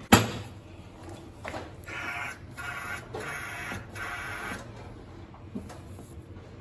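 Tools working on the metal parts of a gas range burner: one sharp metal knock, then three short rasping, buzzing bursts of about a second each.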